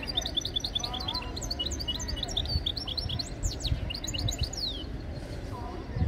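A caged songbird singing a fast, unbroken twittering song of quick high notes that stops about five seconds in, over a low background rumble.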